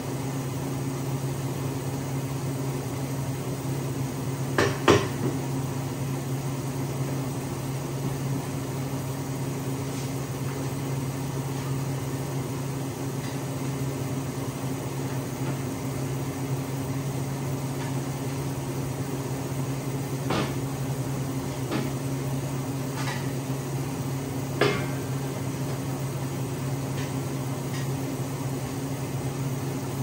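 Steady electrical hum, with a few sharp metal knocks and clinks of steel parts being handled: two close together about five seconds in, and several more spread between about twenty and twenty-five seconds.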